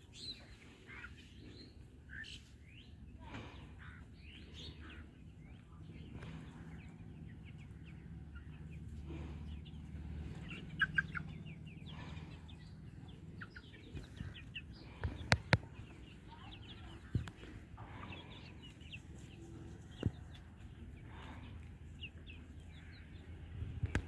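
Domestic chickens clucking and calling with short, scattered calls, broken by a few sharp knocks, two of them close together a little past the middle.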